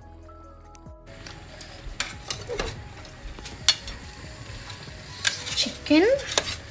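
Chicken masala sizzling and bubbling in a steel pot while a slotted steel ladle stirs it, the ladle knocking sharply against the pot several times.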